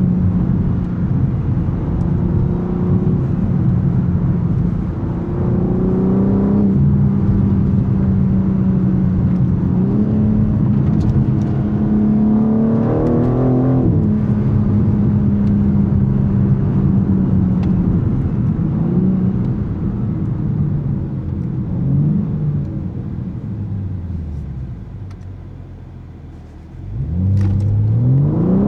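BMW M3 Competition's S58 3.0-litre twin-turbo straight-six driving under load, its pitch climbing and then dropping back at gear changes about six and thirteen seconds in. Near the end the engine quietens and falls in pitch as the car slows, then revs rise sharply as it accelerates hard again.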